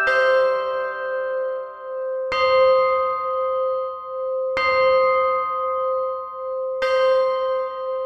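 Big Ben, the great hour bell of the Westminster clock tower, striking the hour: four strikes of the same deep bell, evenly about two seconds apart, each ringing on into the next.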